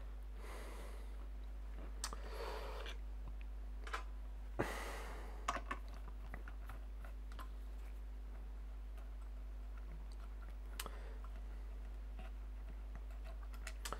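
Scattered small clicks, taps and short rustles of hands handling computer hardware and parts, the sharpest click about four and a half seconds in, over a steady low hum.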